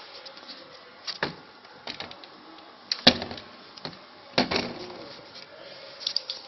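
About five sharp clicks and knocks, spread out, the loudest about three seconds in: an RFID door lock's parts being handled and worked on.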